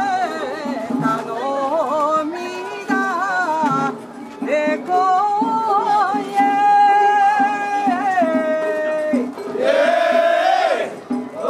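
Kiyari, a Japanese festival chant sung by a solo voice in long held notes that waver and slide between pitches.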